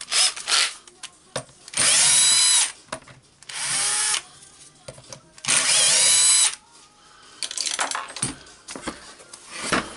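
Small electric screwdriver running in three short spurts, about a second each, its motor pitch shifting as it backs out the small Torx screws holding the housing of a Hilti TE56 hammer drill. A few small clicks come before and after the runs.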